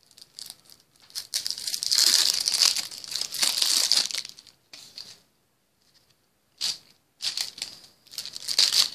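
Crinkling of a trading-card deck's plastic wrapper being handled and pulled off, in several bursts with a near-silent pause of about two seconds in the middle.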